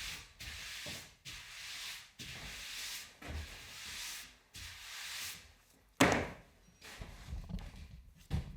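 About six rasping strokes in a row, each lasting under a second, as of something being rubbed or scraped by hand, then a single sharp knock about six seconds in, followed by a few softer bumps.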